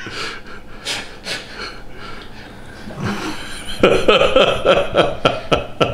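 Stifled laughter: breathy snorts and gasps, breaking into louder voiced laughter about four seconds in.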